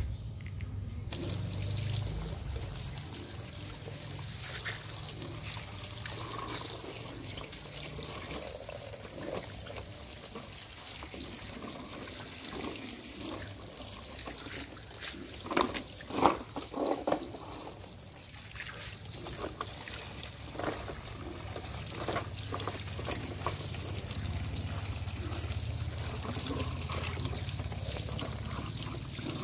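A stream of water pouring and trickling over plastic toy trucks as they are rinsed, splashing onto wet tiles. About halfway through come a few louder knocks.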